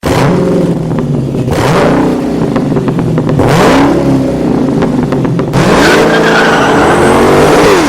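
A vehicle engine revving loudly, its pitch climbing and falling off again several times, with sharp ticks among it. It cuts off suddenly at the end.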